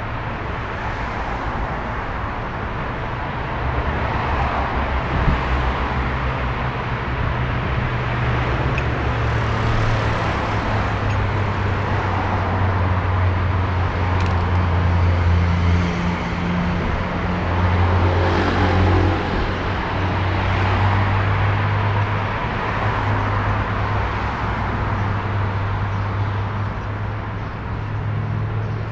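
Street traffic: a steady low engine drone with vehicles passing on the road, swelling briefly about ten and nineteen seconds in.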